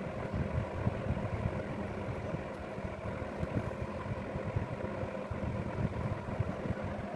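A running machine: a steady low rumble with a faint, even hum.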